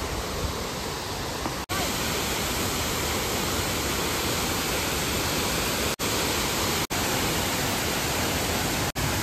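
Steady rushing roar of a waterfall, an even hiss of falling water, cut off for an instant four times.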